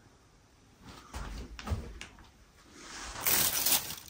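A few soft thumps, then a rustling, crinkling noise near the end.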